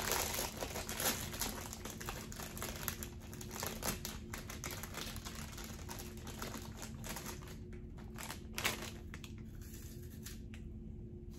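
Bag of Flamin' Hot Cheetos Puffs crinkling irregularly as it is handled and a hand reaches into it for a puff, thinning out near the end.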